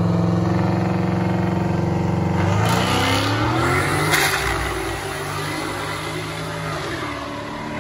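Ford Mustang engine held at steady high revs on the drag-strip start line, then launching about two and a half seconds in with a rising engine note as it accelerates away, and fading with distance down the track.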